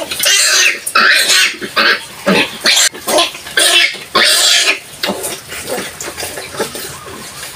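A litter of five-day-old Large White piglets squealing while suckling at the sow's teats: many short, high squeals in quick succession, loud for the first few seconds and then fading.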